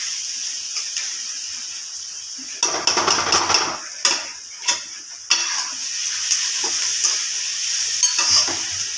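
Food sizzling in a hot pan, with a metal spoon stirring and scraping in the pan about three seconds in, then a few sharp clinks against the pan.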